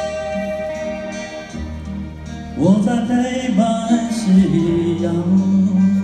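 Live band playing a Mandarin folk ballad: held instrumental notes, then a male voice comes in singing about two and a half seconds in, backed by acoustic guitar and band, and the music grows louder.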